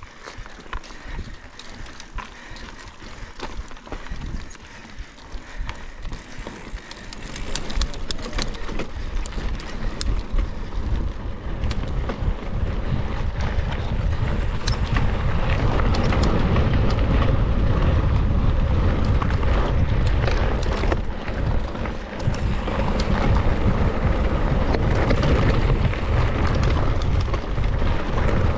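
Cross-country mountain bike ridden along a dirt trail: tyre rumble with a constant rattle and clatter of the bike over rough ground, and wind buffeting the onboard microphone. It gets louder about seven seconds in and louder again about halfway through.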